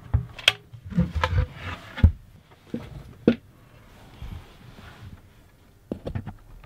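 Irregular knocks, clunks and rustles of handling: wooden locker panels and gear being moved and bumped in a cramped space. There is a quick series of knocks in the first three seconds or so and a few more near the end.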